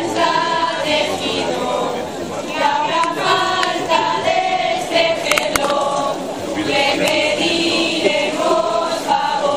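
A group of voices singing a traditional folk dance song together in phrases, with a few sharp clicks about five and a half seconds in.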